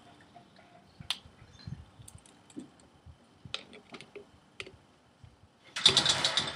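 Faint scattered clicks and taps of fingers and a Life Saver mint working at the neck of a small plastic Coke bottle, the mint stuck and not going in. Near the end, a short louder burst of hissing.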